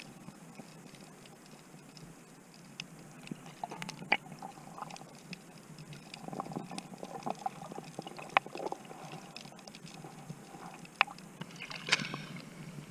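Water heard through a camera held underwater: a low wash of water with scattered clicks and taps. Near the end comes a louder splash as the camera breaks the surface.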